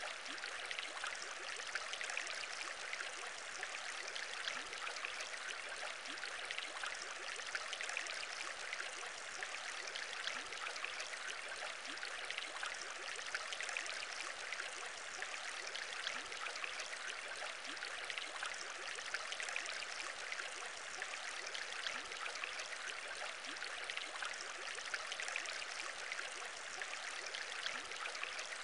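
Aquarium bubbling: a steady, dense stream of small bubbles in water, with no pauses or changes.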